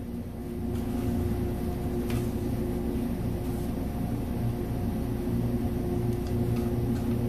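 Steady low mechanical hum with a few held tones, like a running machine or motor in the background, with a faint click about two seconds in.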